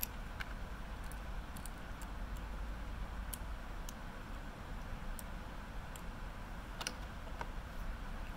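Small plastic Lego pieces being handled and pressed together, giving about a dozen short, sharp clicks at irregular intervals over a steady low hum.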